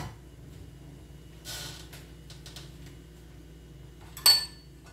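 Kitchenware being handled on a counter: a soft scrape about a second and a half in, a few light taps, then a sharp ringing clink near the end as a dish or utensil is set down.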